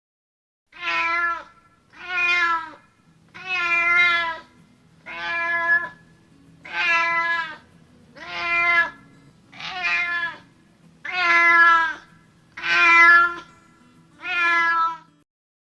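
Domestic cat meowing ten times in a steady series, one meow about every one and a half seconds, each a short, clear, pitched call.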